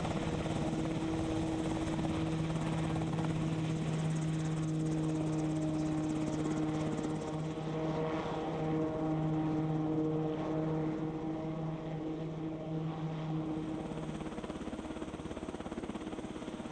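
Piasecki X-49A compound helicopter running, with a fast rotor chop under a steady droning hum. About fourteen seconds in the hum drops out and the sound eases off a little.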